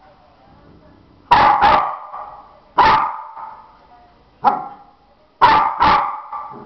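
A dog barking: six sharp barks in groups, a quick pair, then two single barks, then another quick pair, each trailing off briefly.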